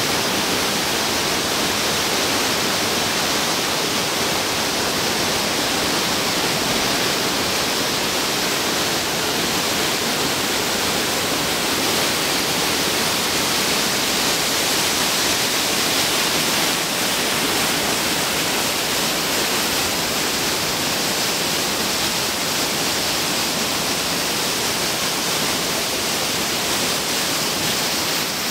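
Steady, unbroken rush of a mountain brook cascading down a waterfall and over boulders.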